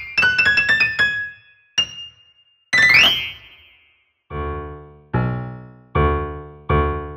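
Solo piano music: quick runs of high notes with brief pauses, then from about four seconds in, a low, full chord struck again and again, roughly every 0.8 s, each one dying away.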